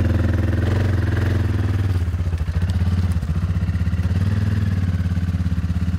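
UH-1H Huey helicopter running on the ground close by: a steady heavy drone with a fast, even beat from the rotor blades.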